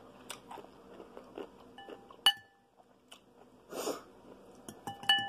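Eating sounds: a fork clinking against a glass bowl with a short ring, about two seconds in and again near the end, among faint chewing and mouth clicks. A brief noisy rush just before four seconds comes as ramen noodles are lifted out of the broth.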